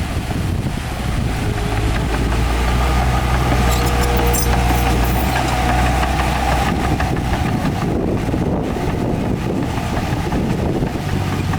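Heavy diesel engine of earthmoving machinery running steadily, with a faint metallic clatter about four seconds in. The engine's low hum falls away about seven seconds in, leaving a rougher rushing noise.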